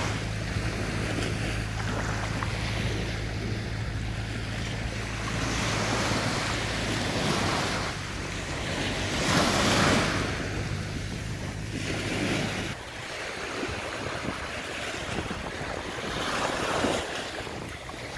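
Ocean surf breaking on a beach, the wash swelling and falling every few seconds, with wind buffeting the microphone. A steady low hum runs beneath it and cuts off about two-thirds of the way through.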